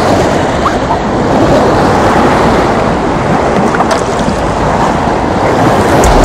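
Shallow seawater washing and lapping over rocks at the shore, with wind rumbling on the microphone.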